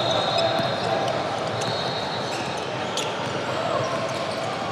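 Basketball being dribbled on a hardwood gym floor, a string of sharp bounces in a large, echoing gym, with background chatter from players and spectators.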